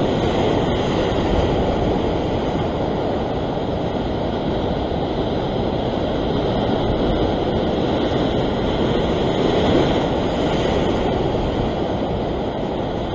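Ocean surf breaking and washing over a rock ledge in a steady rush. It swells a little about ten seconds in.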